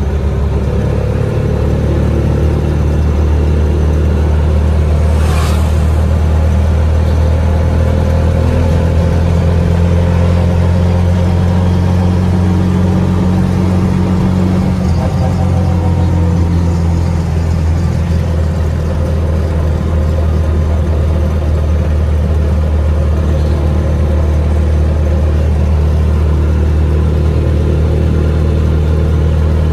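Motor tricycle engine running steadily under way, a loud, even low drone, with a brief hiss about five seconds in.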